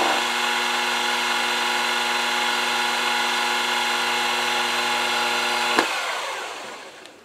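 Mini mill spindle running steadily with an end mill at the end of a light finishing pass in aluminium, a constant whine of several tones. About six seconds in there is a click as the mill is switched off, and the spindle winds down to quiet.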